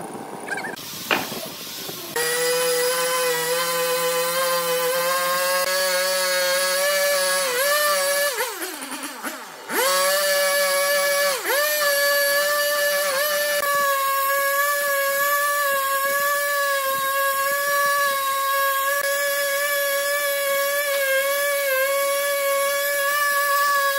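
Husqvarna chainsaw at full throttle cutting lengthwise through a log. Its pitch dips briefly whenever the chain takes load. Around eight seconds in it eases off to a low idle, then revs back up about a second later and carries on cutting steadily.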